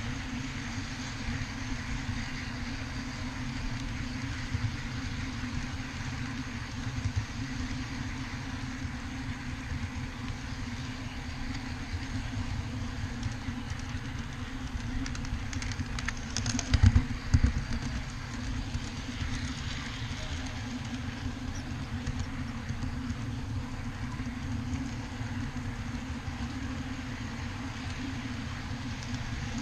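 Ride-on backyard railroad train rolling along its track, a steady rumble of wheels on rail. A little past halfway there is a short burst of loud clattering as the wheels cross another track.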